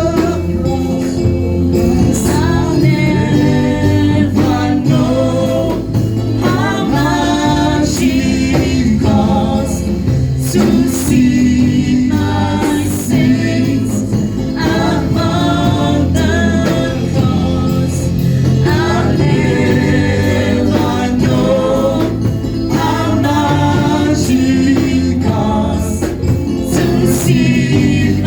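Group of voices singing a gospel worship song over instrumental backing with a steady bass line.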